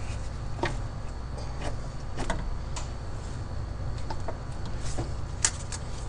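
Light, scattered clicks and taps of metal parts being handled on a freshly fitted engine intake manifold, about eight in all, over a steady low hum.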